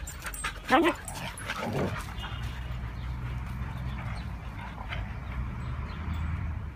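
Huskies at play: a yelp with a falling pitch about a second in, then a shorter, lower vocal sound just after. After that only a steady low rumble remains in the background.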